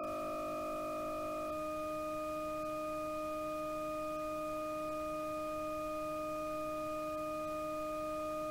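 Synthetic navigation sonification tone: a few steady pure partials under a faint hiss. About a second and a half in, the rough, beating side-tones drop out and the tone turns smooth and steady, the sign that the cursor sits at zero roughness, at the origin of the display.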